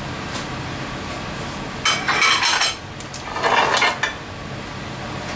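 Two short clattering scrapes of metal kitchen utensils, about a second apart, over a steady low hum.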